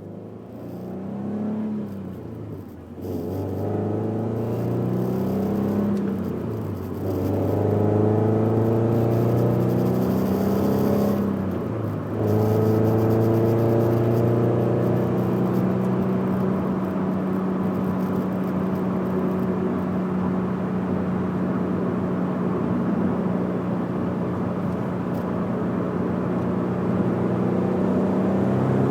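Scion FR-S's 2.0-litre flat-four, fitted with Borla unequal-length headers, an HKS front pipe and a Greddy exhaust, accelerating through the gears: the engine note rises, drops at each shift about three, seven and twelve seconds in, then holds steady at cruise with a boxer rumble.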